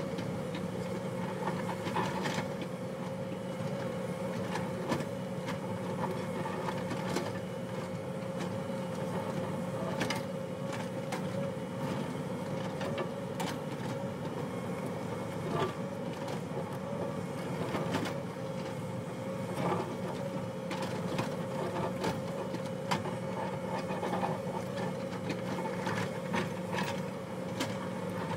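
Hyundai crawler excavator's diesel engine running steadily with a constant hum while the bucket digs into a rocky hillside, with scattered knocks and clatter of scraped and falling rock and soil.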